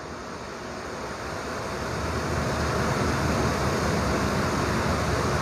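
Steady rushing background noise with no speech, swelling over the first two to three seconds and then holding level.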